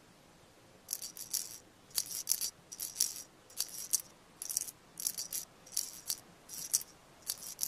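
A shaker or rattle shaken in short rhythmic bursts, roughly one burst every second or less, as part of a gentle music cue. It starts about a second in.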